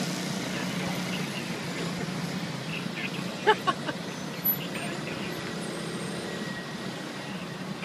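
Street traffic: vehicle engines running steadily with a constant low hum, broken about three and a half seconds in by a brief cluster of sharp sounds and one more a second later.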